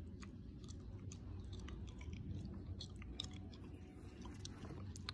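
Faint handling noise: scattered small clicks and rustles as a leather sneaker is turned in the hand and set back into its cardboard shoebox, over a steady low hum.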